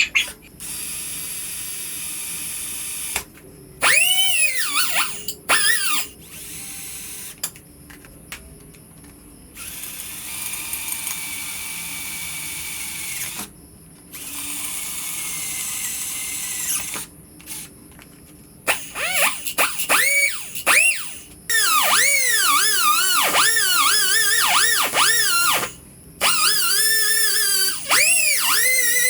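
Handheld electric power tool run in bursts: several seconds of steady whine at a time, then, in the second half, its pitch dipping and recovering over and over as it is loaded.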